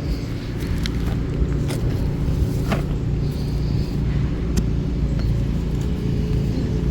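A steady low rumble with a faint steady hum above it and a few light clicks.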